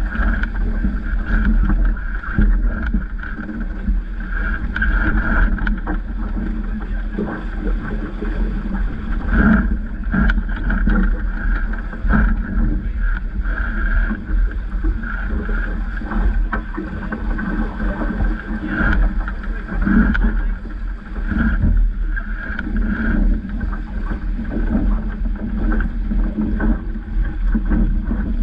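Wind buffeting the microphone over water rushing along the hull of a Vaucluse Junior sailing dinghy moving through choppy water, with scattered brief splashes and knocks from chop against the bow.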